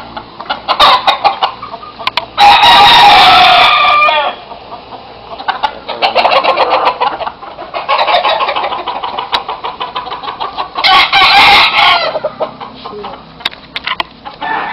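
Gamecocks crowing: a loud crow about two and a half seconds in and a second one near the end, with fainter calls from other roosters between them.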